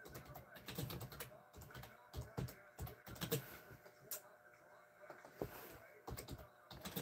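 Faint typing on a computer keyboard: irregular keystrokes and clicks.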